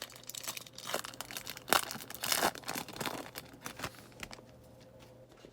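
Foil wrapper of a Topps Series 1 baseball card pack crinkling and tearing as it is opened by hand, busiest in the first three seconds and then dying down.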